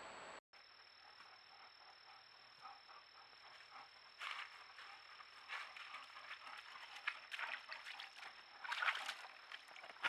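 Irregular rustling and crunching in leaf litter, getting louder near the end, over a faint steady high-pitched whine.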